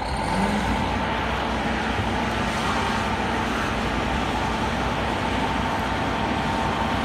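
Steady engine-like running noise: an even rumble and hiss with a faint constant hum.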